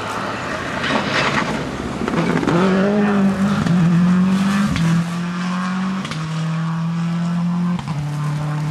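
Rally car driving hard past, the engine note held high and then breaking and dropping a few times as it changes gear and pulls away.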